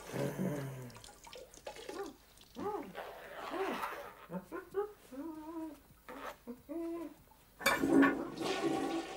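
A chimpanzee retching over a toilet bowl: a string of short heaving sounds, each rising and falling in pitch, with a louder splashing burst near the end.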